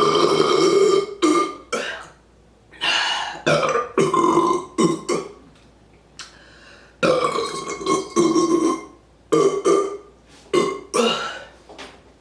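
A woman burping loudly over and over: about ten burps, some short and clipped, others long and drawn out. The burps are gas brought up from a fast-chugged carbonated Coke Zero.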